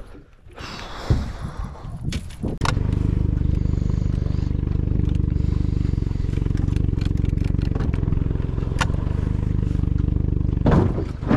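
A few knocks and rustling, then, from about three seconds in, a Honda 90 hp four-stroke outboard running steadily under way. A brief louder noise comes near the end.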